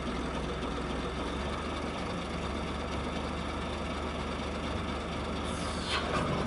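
Steyr 8130 Turbo tractor's diesel engine running steadily, driving the TST Junior yarder's hydraulics as its tower mast is raised. A brief falling whine comes near the end.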